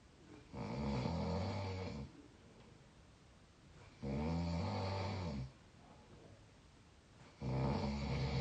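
A sleeping 22-year-old snoring with a squeaky, pitched tone: three snores about three and a half seconds apart, each lasting about a second and a half.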